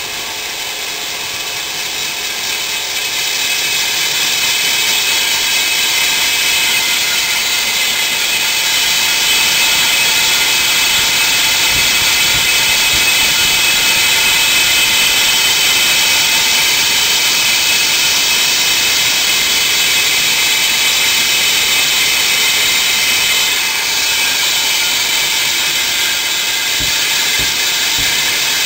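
Hilti DD 200 diamond core drill running steadily with a 27 cm core bit cutting into a wall: a high motor whine over a grinding hiss. It builds over the first few seconds, then holds.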